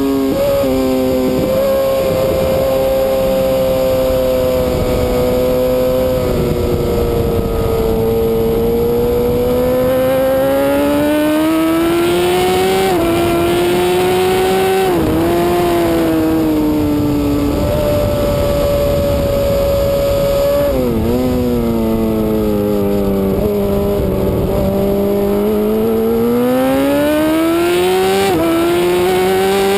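Suzuki GSX-R1000 superbike's inline-four engine at racing speed, its pitch climbing under acceleration and dropping sharply several times at gear changes, with long swells and dips through the corners. A steady rush of wind runs underneath.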